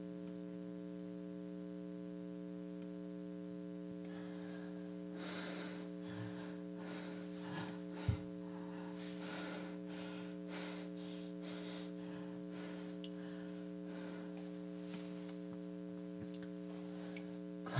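Steady hum of a running air conditioner, a stack of even tones, with faint soft rustles in the middle and a single low thump about eight seconds in.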